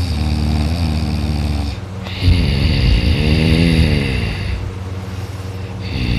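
A sleeping man snoring through three breaths. The first is a rough snore. The longer second one carries a moaning tone that rises and then falls in pitch. The third starts near the end.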